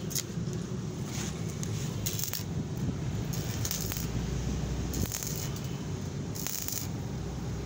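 Stick (arc) welding on a steel pipe joint: the electrode's arc crackling and sputtering steadily, with a few brief louder hissing flares.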